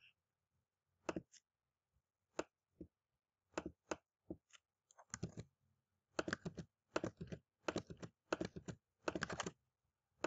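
Computer mouse and keyboard clicking: a few separate clicks, then quick runs of clicks about halfway through as times are picked and entered in a web form.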